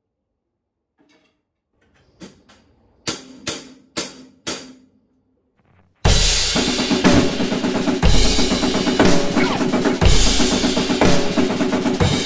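A few soft taps, then four sharp, evenly spaced count-in strokes about half a second apart. About six seconds in, a full drum kit starts playing a steady groove, with bass drum and snare, along with the song's backing track.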